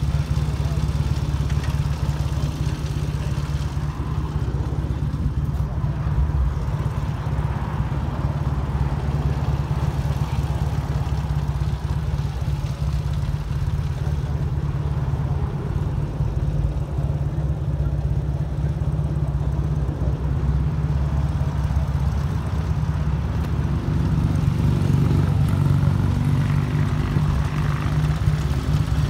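Motorcycle engine running steadily, a continuous low sound with no clear changes in speed.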